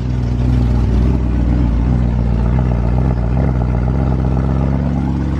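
Mazdaspeed6's turbocharged 2.3-litre four-cylinder running at a steady speed, breathing through a newly fitted Cobb intake.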